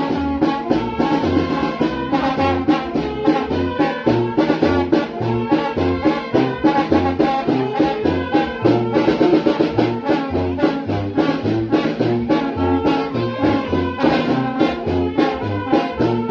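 Brass band (banda) playing: trumpets and trombones over a bass line that alternates between two low notes on an even beat, with steady percussion.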